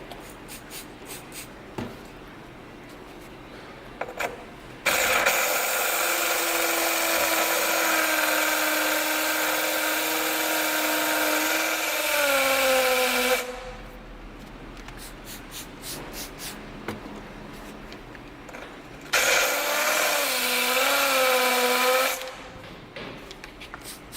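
Cordless drill spinning a diamond core bit into porcelain tile, in two runs of about eight and three seconds. The motor's pitch dips and wavers as the bit bites under load while the drill is rocked around the cut.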